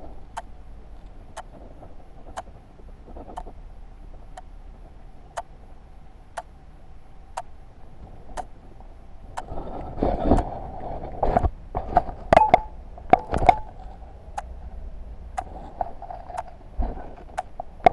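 A wristwatch ticking about once a second over a faint steady hum. About ten seconds in, a few seconds of louder knocks and scuffing.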